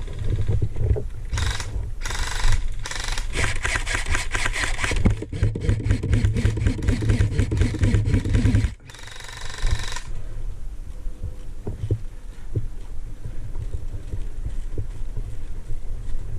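Rapid airsoft gunfire: a fast string of sharp shots over low thumping handling noise on the helmet camera, used as suppressive fire to hold the other team down. It stops abruptly about nine seconds in, leaving only a few scattered clicks.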